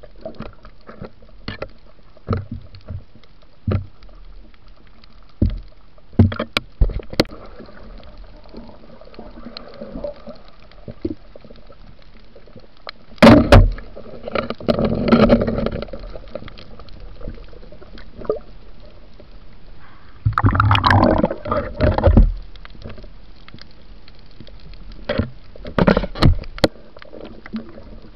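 Underwater sound picked up by a diver's camera: scattered clicks and knocks over a low hiss, with two loud stretches of bubbling, gurgling water, the first beginning with a sharp knock about 13 seconds in and the second about 20 seconds in.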